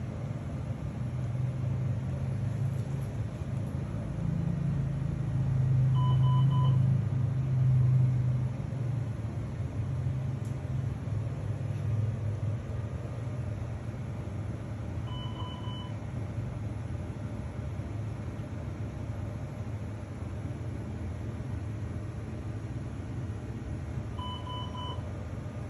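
A low steady rumble that swells louder for a few seconds near the start, with an electronic device giving a short beep three times, about nine seconds apart.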